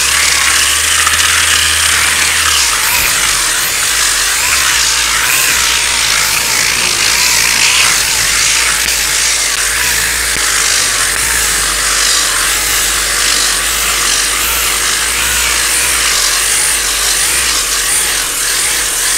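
Steady sanding of cured body filler on a car body panel: a continuous abrasive scratching of paper on filler.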